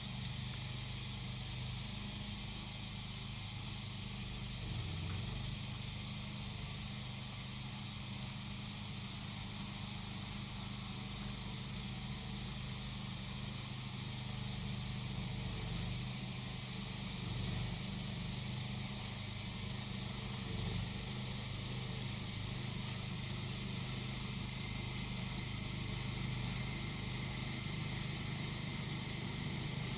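The small engine of a grass-cutting machine runs at a steady pitch throughout. Cicadas keep up a constant high, shrilling chorus over it.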